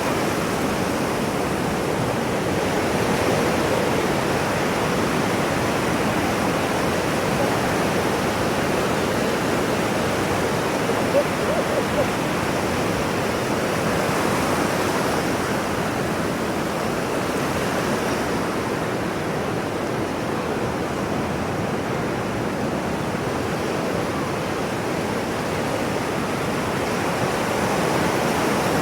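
Ocean surf washing continuously, a steady rushing noise that swells and eases slowly, used as a white-noise sleep sound. Two brief faint blips come near the middle.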